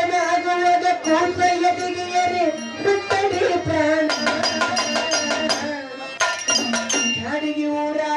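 Devotional bhajan singing: a man sings long held, wavering notes into a microphone, accompanied by tabla-style hand drums and small hand cymbals. The drum and cymbal strokes come thick and fast from about halfway through, then the voice returns to long notes.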